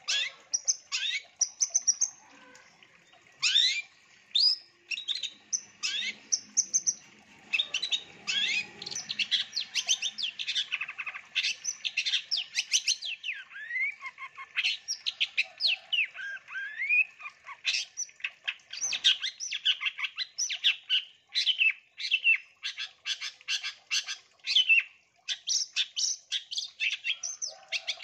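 Long-tailed shrike singing a fast, nearly unbroken string of sharp chirps, clicks and short whistled notes, many of them quick upward glides, with hardly a pause.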